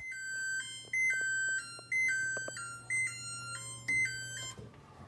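Electric range's timer chime: a short electronic melody of high beeps that repeats about once a second and stops near the end, signalling that the set baking time is up.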